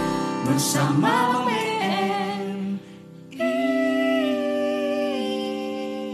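Mixed group of male and female voices singing in harmony. The music breaks off briefly about three seconds in, then the voices hold a long chord that steps down twice and slowly fades.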